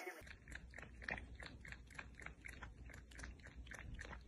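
Faint, rapid wet clicks of a cat lapping liquid from a plastic measuring cup, about four laps a second, over a low steady hum.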